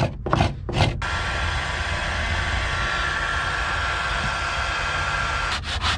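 A few rasping strokes of a carbide scraper on old wood. Then, from about a second in, a heat gun's fan blows steadily with a faint whine as it dries out the damp wood, until it cuts off near the end.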